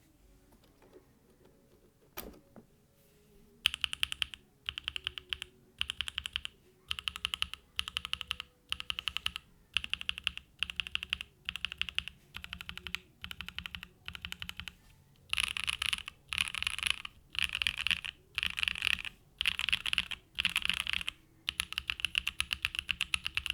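Mechanical keyboard typed on in quick bursts: a Mode Tempo with a carbon-fibre plate and plate foam, hand-lubed Gateron Cream Soda switches and GMK Tako keycaps. After a single key click about two seconds in, the typing starts nearly four seconds in, in short bursts with brief gaps between them. The bursts grow louder and longer past the halfway point and run together near the end.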